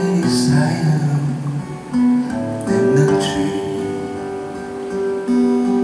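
Acoustic guitar playing strummed chords that ring on, with fresh strums near the start and about three seconds in.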